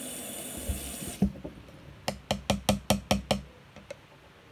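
Bathroom tap running, shut off about a second in, followed by a quick series of about seven sharp knocks, roughly five a second.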